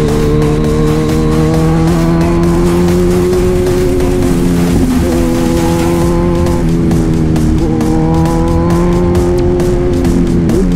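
Kawasaki Z1000 inline-four engine running at steady riding revs, its pitch dipping and climbing a few times with the throttle.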